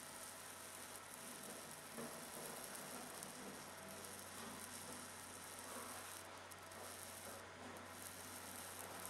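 Fiber laser cutting 0.8 mm sterling silver: a faint, steady sizzling hiss from the beam working the metal on repeated passes, over a low steady machine hum.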